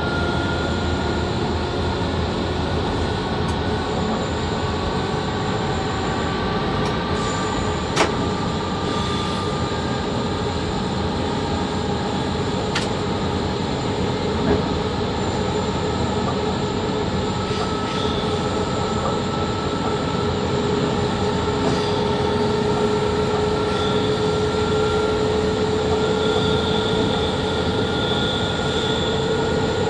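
Electric locomotive running, heard from the cab, with a steady rumble and a whine whose pitch rises slowly as the train gathers speed. Two sharp clicks stand out, about a quarter and half of the way through.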